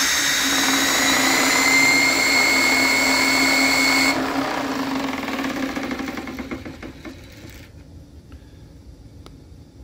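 RC car's 13.5-turn brushless electric motor at full throttle, spinning its drivetrain and a dyno roller: a high whine rising slightly in pitch that cuts off after about four seconds, then the wheels and roller spinning down over the next three seconds.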